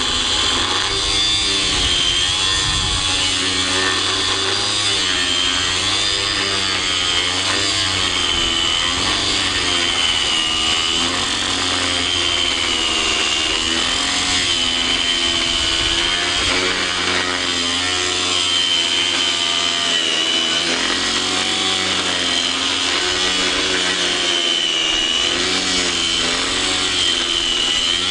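Small Hitachi 125 mm angle grinder cutting through a thick metal bar with an abrasive cut-off disc, running continuously under load. Its high whine sags and recovers in pitch again and again as the disc bites into the metal.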